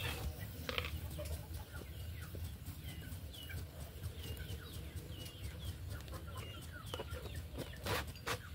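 Chickens calling, with short high peeps about twice a second, over a light crackle from the wood fire under the wok.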